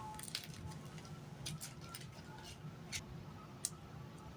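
Faint scattered clicks and light taps of small hard parts from a microphone kit being handled, a few irregular ticks spread through the moment.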